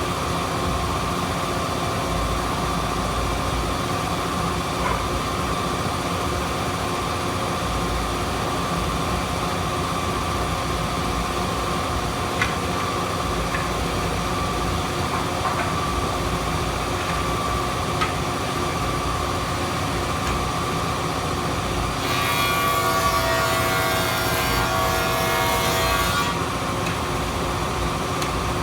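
An 8-inch Grizzly jointer with a spiral cutterhead running with a steady whine as walnut boards are milled. Near the end comes a louder, rougher stretch of about four seconds as a board is fed across the cutterhead.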